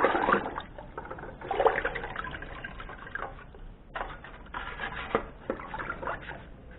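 Water sloshing and splashing in a plastic bucket as a juicer's plastic motor base is dunked and scrubbed with a bristle brush, in irregular bursts.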